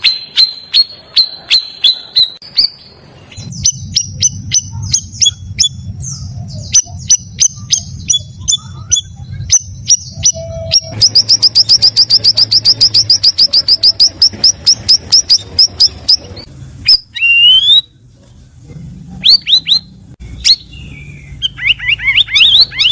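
Stripe-throated bulbul (cucak rawis) singing: clear repeated chirps and short whistles, then a fast even trill of about ten notes a second lasting some five seconds midway, then rising whistled notes near the end. A low rumble runs under the song from a few seconds in.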